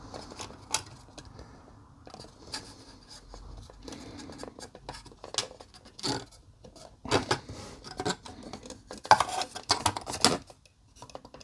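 Small plastic model-kit parts being handled and fitted together: a string of light clicks, taps and scrapes, sparse at first and busier in the second half.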